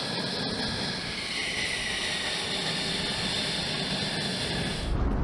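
F-16 fighter jets' turbofan engines running at taxi power: a steady high whine over a broad jet rush. Near the end the whine drops away, leaving a deeper rumble.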